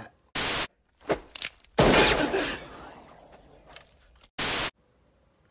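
Two short bursts of TV static hiss, each about a third of a second, one near the start and one about four and a half seconds in. Between them come a few light clicks, then a single loud movie gunshot about two seconds in, its echoing tail fading over about two seconds.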